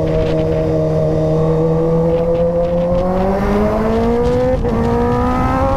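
Kawasaki ZX-10R inline-four engine accelerating hard, its pitch climbing steadily, with a quick upshift about four and a half seconds in and another right at the end, over steady wind noise.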